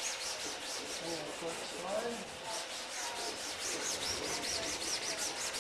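Hand wet-sanding of silver dope on an aircraft's fabric-covered surface: quick, even back-and-forth rubbing strokes, about five a second, with lots of water.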